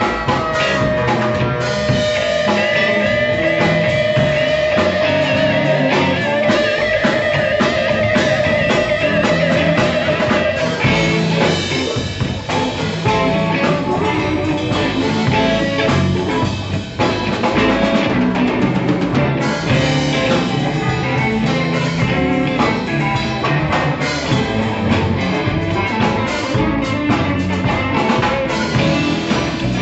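Live blues band playing an instrumental passage: electric guitar, bass, keyboard and drum kit, with a long held, wavering lead note over the first ten seconds or so.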